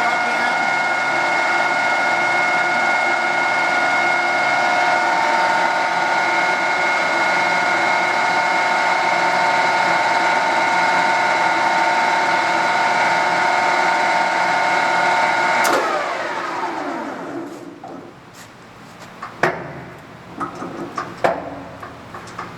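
Standard Modern Series 3000 lathe's geared headstock running with the spindle under power, a steady gear whine of several tones. About 16 seconds in it is switched off and the whine falls in pitch as the spindle coasts down, followed by a few sharp clunks and clicks.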